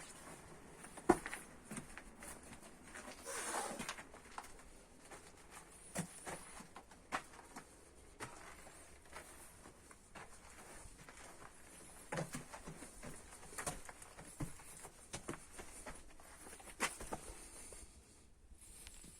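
Faint, irregular knocks and scuffs over a quiet hiss, with a brief rustling swell a few seconds in and sharper knocks scattered through.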